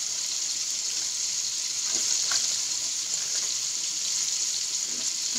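Chicken pieces frying in hot oil, a steady even sizzle.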